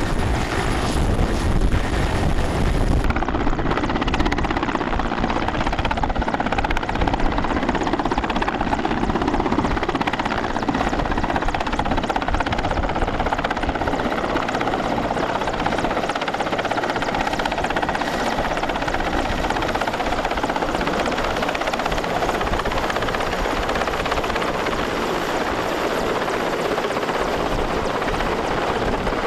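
Mil Mi-17 helicopter's twin turboshaft engines and main rotor running steadily and loudly as it lifts off and hovers low.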